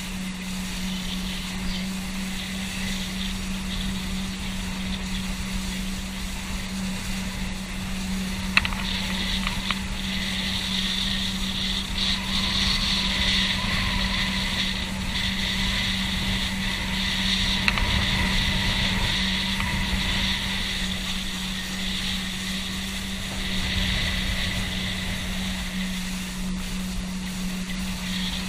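Boat engine running at a steady, even drone while under way, with water hissing past the hull; the hiss swells through the middle. A sharp tick about a third of the way in and another past the middle.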